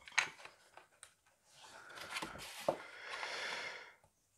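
Plastic model-kit parts being handled and pressed together: a few light clicks, then scraping and rubbing for a couple of seconds with another click midway, as the interior tub of a 1/8 scale Peugeot 205 GTI model is worked into place.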